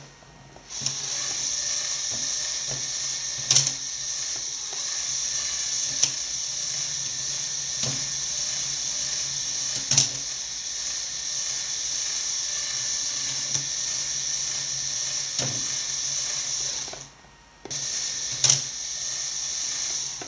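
Motorised Lego Technic mechanical loom running: the motor and plastic gears give a steady high-pitched whir, with a louder clack about every two to two and a half seconds as the mechanism cycles. It starts about a second in, stops briefly near the end, then starts again.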